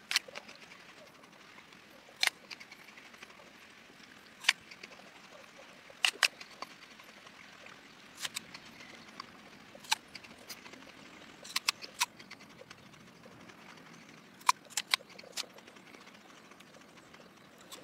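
Gala apple being bitten and chewed close to the microphone: a series of sharp, crisp crunches, a dozen or so, coming irregularly every second or two.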